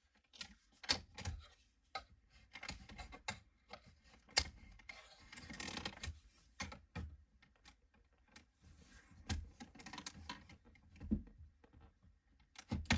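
Plastic clicks and knocks at an irregular pace, with a brief scraping rustle about halfway through, as a panel tool pries an air vent out of a 2011 Toyota Camry's plastic dash.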